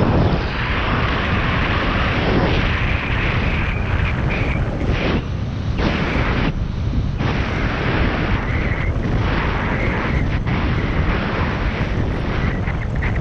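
Wind buffeting the microphone of a camera riding a kite foil: a loud, continuous rumble with a rushing hiss, easing briefly a few times.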